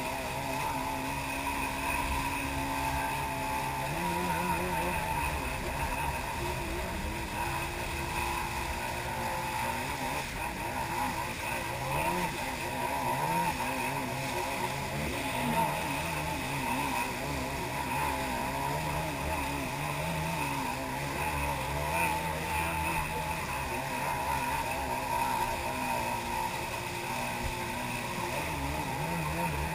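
Jet ski (personal watercraft) engine running under way, its pitch rising and falling with the throttle over the rush of water churned up by the hull.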